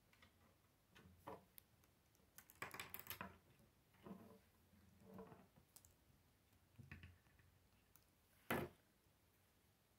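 Faint, scattered clicks of plastic K'nex rods and connectors being handled and snapped together, with a quick run of clicks about three seconds in and one sharper click near the end.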